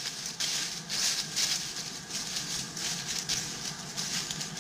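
Footsteps crunching on dry leaf litter on a forest path, about two steps a second.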